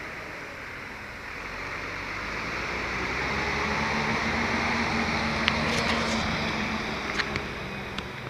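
Comlurb municipal sanitation truck working in the street: its engine runs, growing louder over a few seconds with a steady hum and then easing off, with several sharp clanks in the second half.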